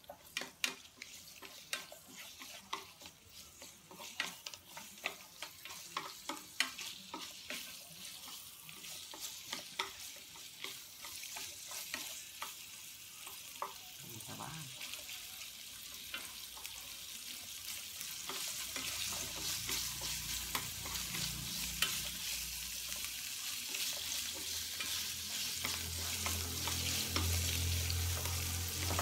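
Pigeon meat sizzling in a frying pan as it is stir-fried with wooden chopsticks, which tap and scrape against the pan. The sizzle grows steadily louder as the meat sears and firms up, and a low steady hum comes in about two-thirds of the way through.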